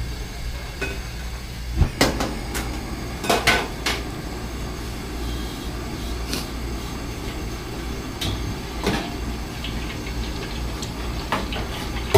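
Stainless steel kitchen utensils clanking: a wire strainer and tongs knocking against the wok and steel stove counter, with sharp clanks about two seconds in, a cluster around three and a half seconds, and another near nine seconds. A steady low hum runs underneath.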